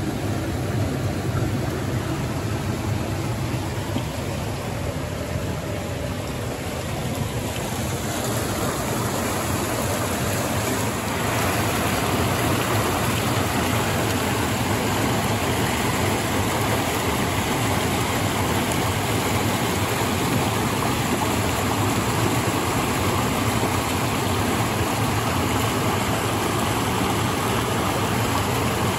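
Creek water rushing steadily over rocks, as a continuous even hiss that grows louder about eleven seconds in.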